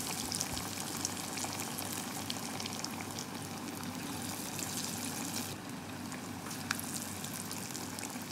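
Masala vadai deep-frying in hot groundnut oil in a steel kadai: a steady sizzling hiss with many small crackles as the oil bubbles around the fritters. A single sharper crackle comes near the end.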